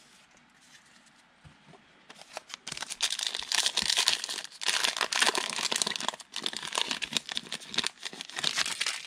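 Crinkling and tearing of a plastic trading-card pack wrapper, a dense crackle of many quick crinkles that starts about two and a half seconds in and grows louder.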